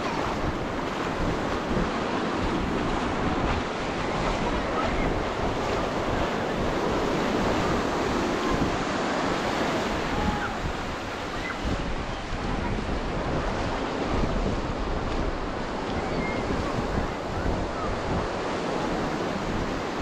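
Steady wash of ocean surf on the beach, with the chatter of a crowd of beachgoers and wind buffeting the microphone.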